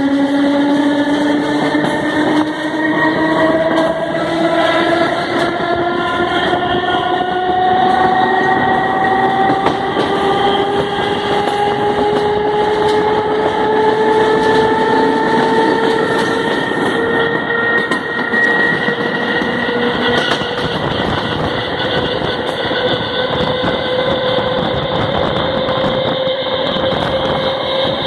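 FNV/Cobrasma series 4400 electric train accelerating out of a station: its traction motors growl with a whine that climbs slowly and steadily in pitch as speed builds, over the rumble and clatter of wheels on rail.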